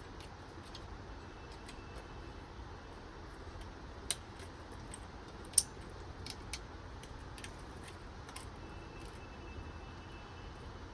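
Scattered small clicks and taps of hands handling PC parts at a motherboard, with two sharper clicks about four and five and a half seconds in, over a steady low hum.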